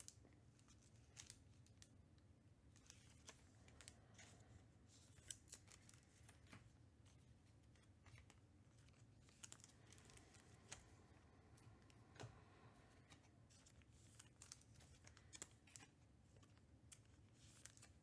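Near silence with faint, scattered clicks and rustles of trading cards being handled and slid into plastic sleeves, over a low steady room hum.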